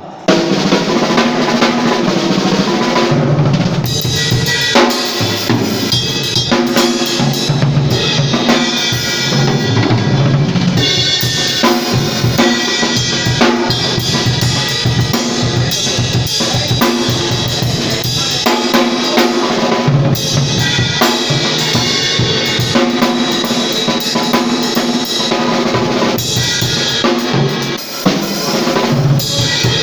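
A live band playing, with the drum kit to the fore: bass drum, snare and rimshots over held notes from pitched instruments.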